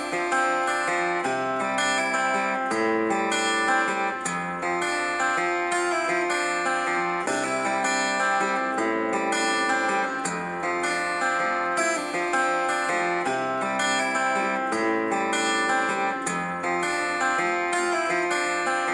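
Guitar music with strummed chords that change about every second and a half, played back through a Fiero Squad P160 portable speaker as a sound test.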